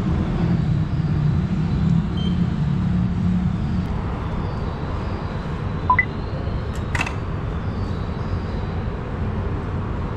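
Steady low rumble of station concourse ambience, with a short electronic beep about six seconds in and a sharp click about a second later.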